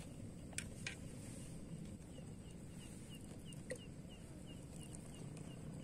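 A faint, rapid series of short, high chirps, each sliding down in pitch, about four a second, from a small calling animal; it starts about two seconds in. A few sharp clicks come before it.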